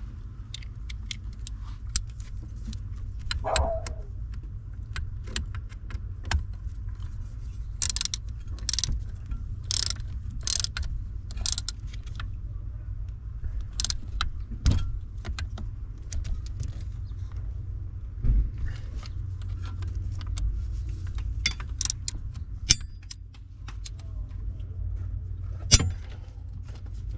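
Scattered metallic clicks, clinks and scrapes of hand tools and bolts being handled while the steering column is reassembled, with a denser run of sharp clicks about a third of the way in, over a steady low hum.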